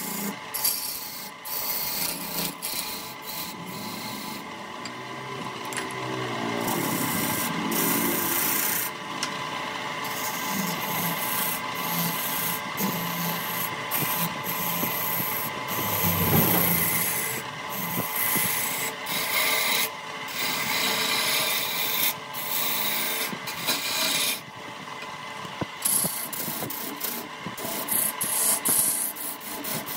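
A turning tool scraping against wood spinning on a wood lathe, over a steady hum. The scraping stops and resumes many times in short breaks.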